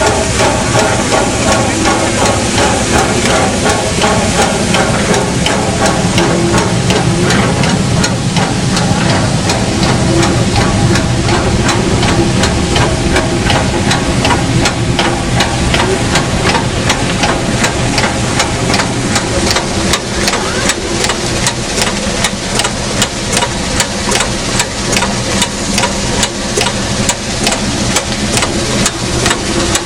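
A train under way: loud mechanical running noise with a steady drone underneath and a rapid train of regular knocks, which quickens and grows more even over the second half.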